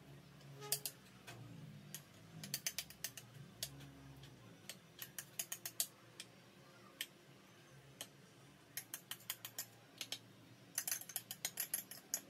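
A utensil tapping and scraping against a ceramic bowl and a glass baking dish as a soft cream cheese mixture is scooped out and spread, in quick runs of light clicks with short pauses between.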